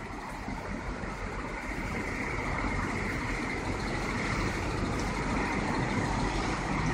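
Street traffic: the steady engine and tyre noise of motor vehicles on the road, growing gradually louder as a vehicle approaches.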